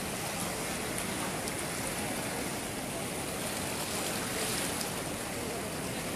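Narayani River in flood: a wide, fast current of brown floodwater rushing past, a steady noise of moving water with no breaks.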